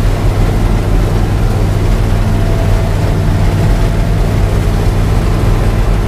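New Holland TR70 combine's Ford gasoline V8 running steadily under harvesting load, with the combine's machinery, heard from the operator's cab. A steady low drone with no change in speed.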